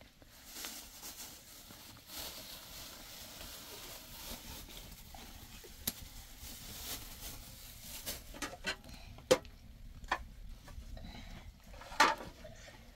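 Soft rustling and hiss, then a run of sharp clicks and knocks of plates and a metal tray being handled, the loudest about nine and twelve seconds in.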